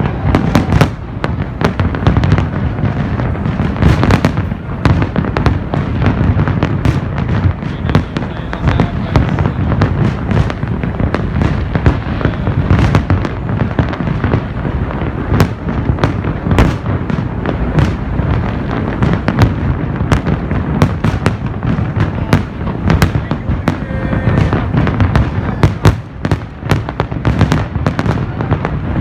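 Large fireworks display going off: a dense, continuous run of shell bursts and crackling bangs, many per second, over a steady low rumble.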